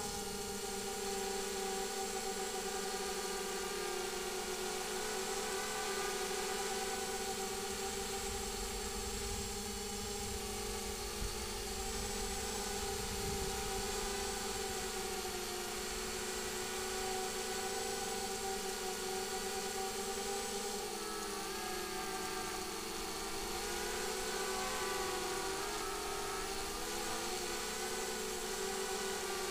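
FPV multirotor's electric motors and propellers whining steadily, heard from the onboard camera. The pitch of the whine holds level at first, then wavers up and down from about two-thirds of the way through.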